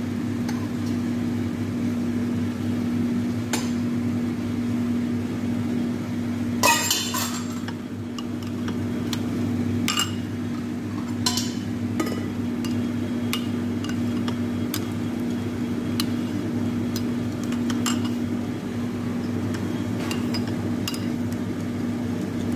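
A metal spoon clinking now and then against a bowl as tomato-paste sauce is stirred, the loudest clatter about seven seconds in. Under it runs a steady low hum.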